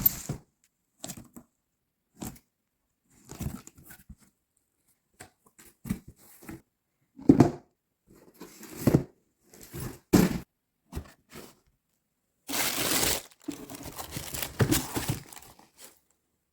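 Sneaker packaging being opened by hand: a series of short rustles, scrapes and knocks, then a longer tearing sound about three quarters of the way through, followed by crinkling.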